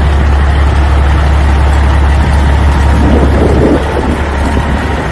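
Truck engine running steadily: a loud, deep hum with a broad noisy rumble over it.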